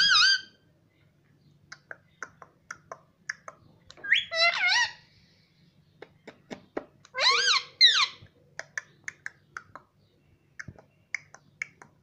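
Male Indian ringneck parakeet giving short, loud, warbling calls three times, at the start, about four seconds in and about seven seconds in, with quick sharp clicks scattered between them.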